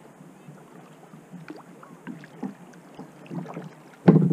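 Kayak paddling on calm water: paddle blades dipping and water dripping and lapping at the hull in scattered splashes. A sharper, louder slap of water comes near the end.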